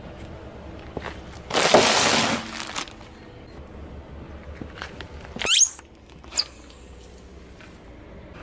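A sealed crisp packet crushed under a car tyre bursts with a loud crackling rush lasting about a second. A few seconds later a rubber squeaky toy fish pressed by the tyre gives one squeal that rises and falls, then a shorter second squeak.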